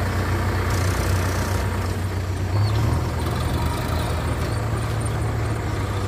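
Diesel engine running steadily with a low drone, swelling slightly about three seconds in.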